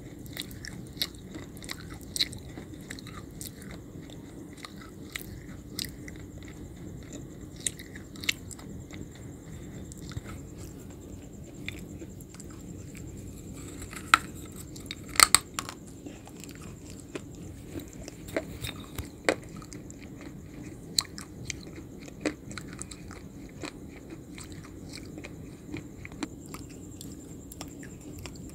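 Close-miked crunching bites and chewing of a hard, brittle food, a sharp crunch every second or so, with the loudest crunches in a cluster about halfway through.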